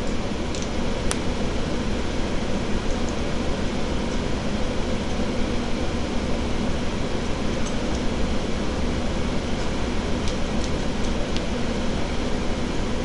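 Steady, even whooshing noise with a faint low hum, like a running fan. A few faint sharp clicks come about half a second and a second in, and again around ten to eleven seconds in.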